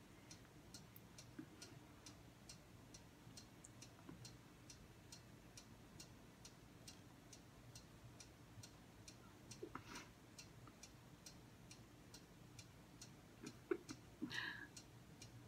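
Near silence with a clock ticking steadily, about two ticks a second.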